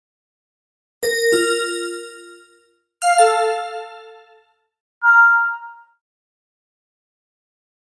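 Three separate short chime sound effects, about two seconds apart: bright ringing notes that fade out, the first a two-note chime, the last the shortest. Silence between them.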